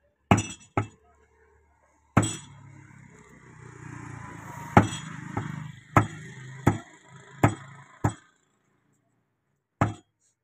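Large butcher's knife chopping beef on a wooden log block: about ten sharp chops at uneven intervals.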